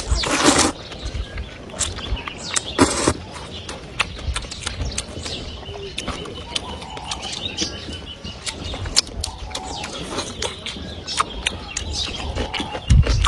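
Someone eating chicken soup with rice: two loud slurps in the first few seconds, then chewing and many small clicks of utensils against a bowl.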